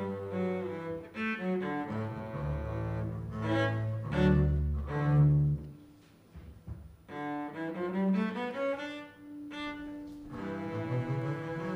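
Small string ensemble of upper strings, cello and double bass playing a slow bowed piece, the cello and bass carrying strong low notes. About six seconds in the music falls almost silent for a moment between phrases, then resumes.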